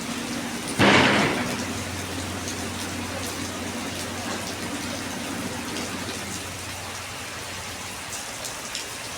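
Steady hiss of heavy rain, with a sudden loud burst of noise about a second in that dies away within a second, and a low steady hum that fades out after about six seconds.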